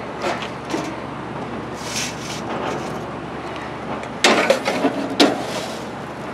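Metal clattering twice, about four and five seconds in, as a stainless steel grill basket of potatoes is set onto a gas grill's grate, over steady outdoor background noise.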